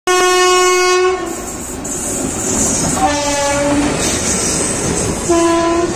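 Train horn sounding three times: a blast of about a second, a shorter one about two seconds later, and a brief one near the end. Between the blasts is the steady running noise of a moving train on the track.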